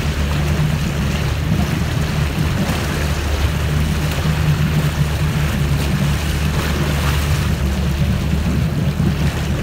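Motorboat engine running steadily at speed while towing a tube, a constant low hum under the rushing noise of the churning wake and wind.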